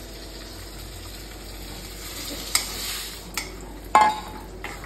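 Ivy gourd curry sizzling in a kadai over a gas flame as rice-flour batter is stirred into it with a spatula: a steady sizzle, a swish of stirring about halfway through, and a few sharp knocks of the spatula against the pan, the loudest about four seconds in.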